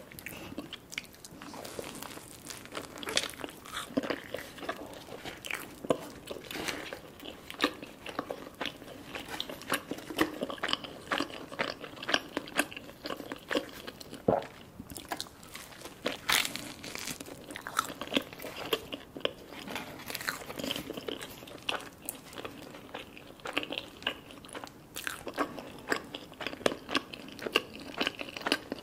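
A person chewing and biting garlic naan dipped in curry sauce, with many short irregular mouth clicks.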